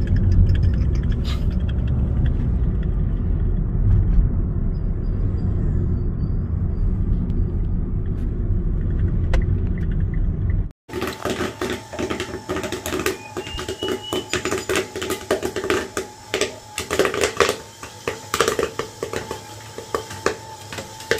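Low road rumble inside a moving car's cabin. About eleven seconds in, the sound cuts abruptly to popcorn kernels popping in the pot of a popcorn machine: many irregular pops over the steady whine of the machine's 12-volt stirring motor.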